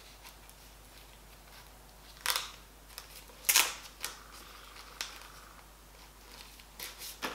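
Handling sounds from unpacking a smartphone gimbal kit: four or five short clicks and rustles, the loudest about three and a half seconds in.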